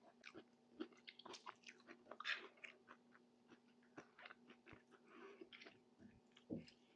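Faint close-miked chewing of Moroccan tajine, heard as a run of small irregular mouth clicks and smacks, with a couple of louder bites near the middle and near the end.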